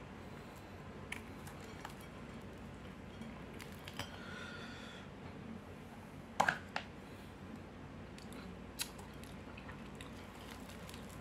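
Quiet handling of food and its containers at the table: scattered light clicks, a short rustle about four seconds in, and a sharper double click about six and a half seconds in.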